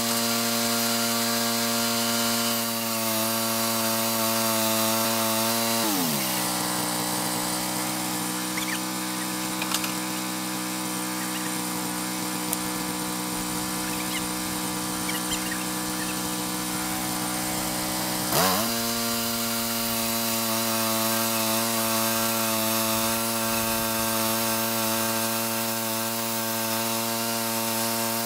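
Portable band sawmill's engine running steadily as it drives the blade through a large stump. The engine note drops about six seconds in, rises again near eighteen seconds, and drops once more at the very end.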